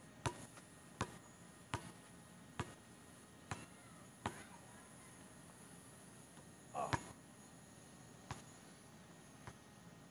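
Basketball dribbled on an outdoor hard court: six sharp bounces, a little under one a second. About seven seconds in comes a louder impact with a short ring as the shot hits the hoop, then two fainter bounces.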